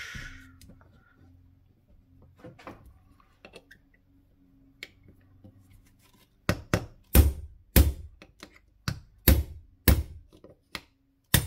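A hammer tapping a 1/8-inch pin punch to drive a pin out of an AR-style lower receiver: light handling clicks, then about eight sharp metallic strikes starting about halfway through, roughly half a second apart.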